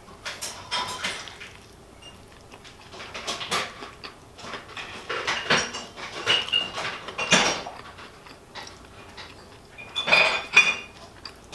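Irregular household clatter of clicks and knocks, with a few brief high-pitched squeaks about halfway through and near the end.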